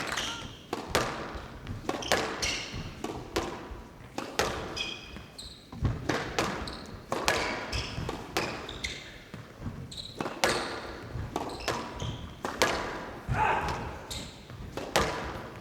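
A squash rally: the ball is struck by rackets and smacks off the court walls in a string of sharp cracks about every half-second to second. Shoes give short high squeaks on the court floor between shots.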